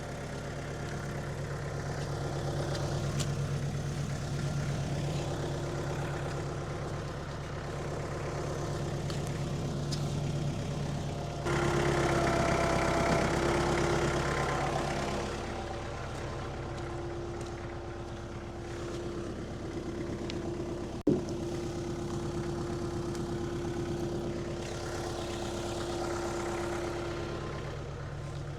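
An engine running steadily, louder for a few seconds about a third of the way in, with one sharp knock about three-quarters of the way through.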